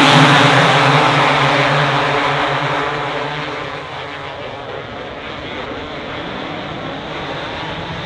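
Two-stroke motocross bikes running hard at high revs. The engine noise fades over the first four seconds or so as they pull away, then holds as a lower, steady drone of engines.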